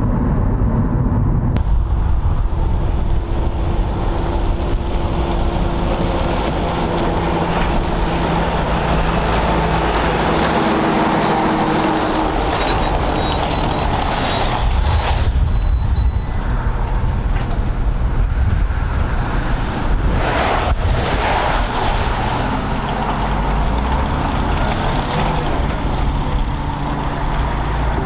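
MAN SV army truck's diesel engine running as the truck pulls away, with tyre and road noise. A brief high-pitched squeal cuts in about twelve seconds in and lasts a few seconds.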